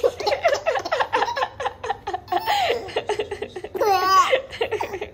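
A baby giggling and laughing in quick repeated chuckles, with a high wavering squeal about four seconds in.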